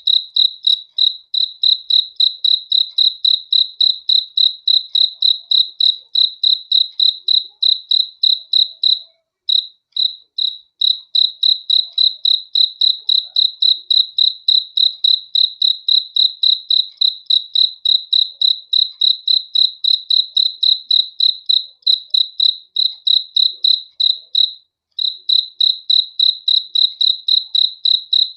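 A cricket chirping close by: a steady run of short, high, pure-toned chirps at an even quick pace, broken by two brief pauses, one near the middle and one near the end.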